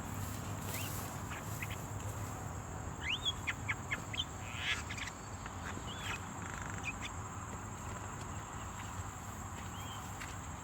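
Birds calling in a few quick bursts of short chirps and upswept whistled notes, clustered about three to five seconds in, over a steady high insect drone.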